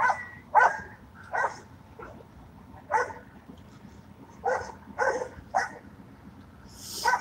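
A police K9 dog barking again and again, about nine barks at uneven gaps, some in quick pairs.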